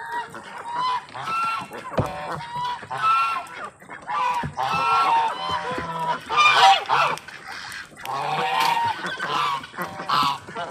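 Domestic geese honking, several birds calling over one another in short repeated honks.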